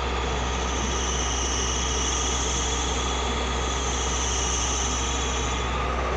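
Earthmoving machine's diesel engine running steadily, a constant low rumble with an even hiss above it.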